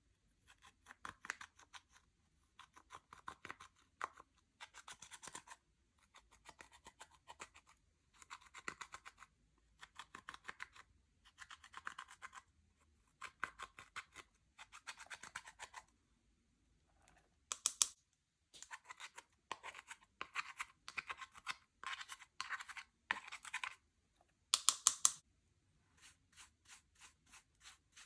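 Slime being kneaded and pressed by hand, giving quick runs of small clicks and pops in bursts of about a second with short pauses between them, and a few louder crackles.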